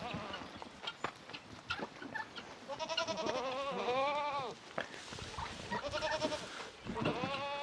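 Goats bleating: three wavering calls, the longest about a second and a half in the middle, with a shorter call near the end.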